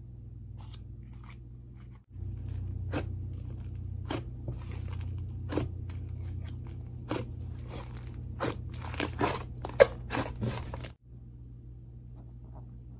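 Fluffy slime full of confetti sprinkles being squished and stretched by hand, crackling and popping as air pockets burst. The crackles start about two seconds in and thicken toward the end, with one loudest pop near the end, before the handling stops.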